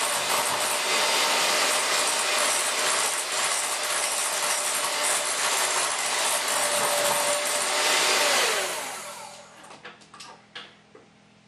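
Electric hand mixer running at speed, its beaters churning cake batter in a glass bowl with a steady motor whine. About eight and a half seconds in it is switched off and winds down, followed by a few light clicks and knocks.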